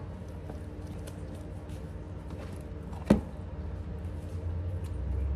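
Small clicks and scrapes of a spoon filling halved jalapeño peppers with cream cheese from a plastic tub, with one sharp knock about three seconds in. A steady low hum runs underneath and swells into a louder low rumble near the end.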